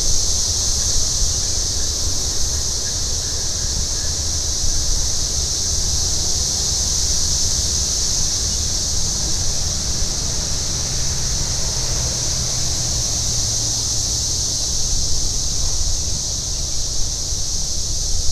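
Outdoor ambience: wind rumbling on the microphone under a steady high-pitched hiss, with a faint low hum from a vehicle on the road around the middle.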